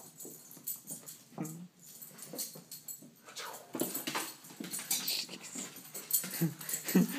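A dog playing with a plush toy, making several short, low vocal sounds amid scuffling and rustling.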